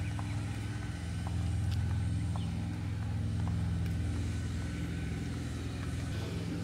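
An engine running at a steady speed: a low, even hum with a few faint clicks over it.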